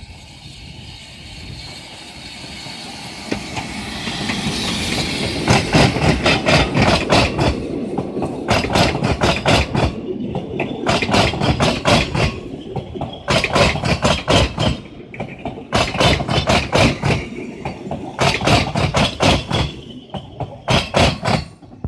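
Narrow-gauge steam locomotive Prince approaching and passing with a hiss of steam, followed by its carriages rolling by. Over a steady rumble, the carriage wheels click over the rail joints in quick clusters about every two seconds.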